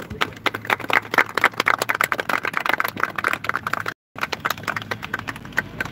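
Small crowd applauding: many overlapping hand claps, dense and irregular, briefly cut out about four seconds in.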